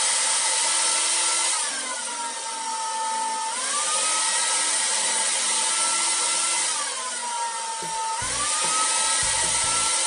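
Xiaomi Soocas H3 hair dryer running, a steady rush of air with a high motor whine. The whine drops to a lower pitch and the airflow gets quieter about a second and a half in, climbs back up near four seconds, drops again around seven seconds and climbs back about a second later, as the dryer is switched between its normal and boosted fan speeds.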